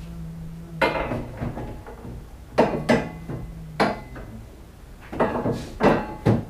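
Metal harness bar clanking and knocking against the UTV's roll-cage tubes as it is seated and positioned by hand. About six sharp metallic knocks come at irregular intervals.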